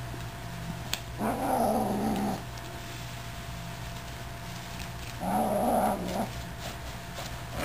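Eight-week-old F3B Savannah kitten growling twice, each growl about a second long with a wavering pitch, while it holds a feather wand toy in its mouth: a possessive play growl over caught prey.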